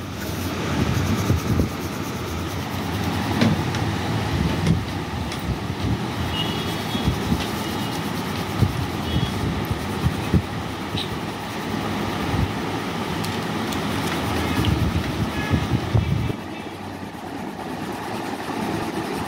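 Coloured pencil shading over paper on a table: a continuous rough scratching from quick back-and-forth strokes, a little quieter near the end.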